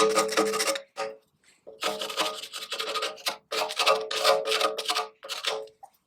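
Repeated hand rubbing strokes, an abrasive worked back and forth against a hard surface in uneven bursts with short pauses between them.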